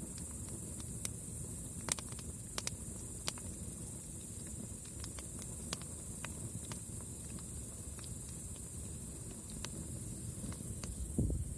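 Wood campfire crackling: irregular sharp pops and snaps over a low, steady rumble of the flames, with a steady high hiss behind. A louder low rumble or thud comes near the end.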